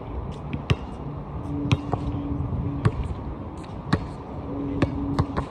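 Basketball bouncing on an outdoor hard court: sharp single bounces about once a second, five in all, over a steady low background rumble. A steady low hum comes in twice.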